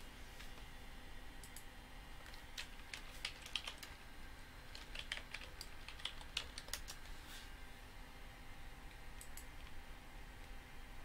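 Faint keystrokes on a computer keyboard, scattered taps coming in a few quick bursts, with a last couple of taps near the end.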